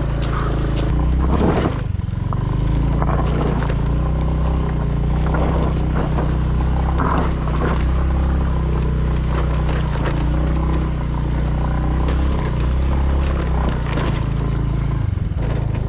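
Motor scooter's small engine running steadily as it is ridden up a rough, rocky dirt track, with scattered knocks and rattles from the bumps.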